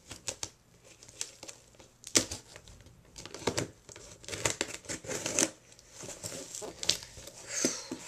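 A package being cut and torn open with a knife: irregular crinkling, rustling and ripping of the packaging, with short sharp crackles in between.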